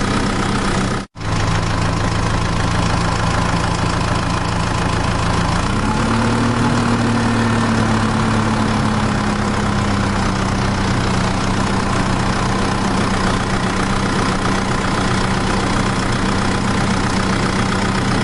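Motor of a miniature homemade tractor running steadily while it ploughs, its pitch rising slightly about six seconds in and easing back over the next few seconds. The sound cuts out for an instant about a second in.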